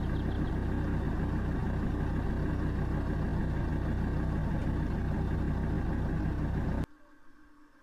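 Car engine idling, a steady low hum that cuts off suddenly near the end.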